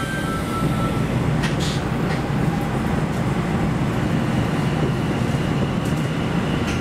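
Sendai Subway Tozai Line train running through a tunnel, heard from inside the car: a steady low rumble of wheels on rail that grows slightly louder about half a second in, with a couple of faint clicks about a second and a half in.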